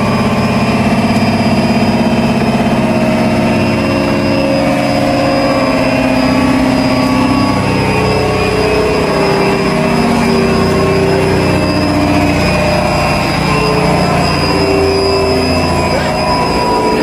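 Large industrial reciprocating refrigeration compressor running, a loud steady mechanical drone made of many overlapping tones.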